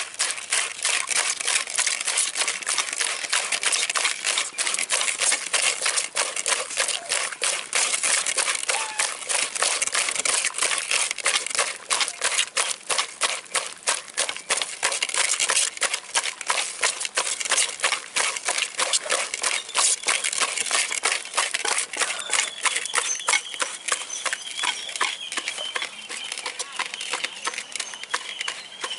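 Hands scrubbing shelled snail meat with salt in a clay pot, a dense, fast crackling as the salt grinds against the slimy meat to strip off its slime. It eases off in the last few seconds.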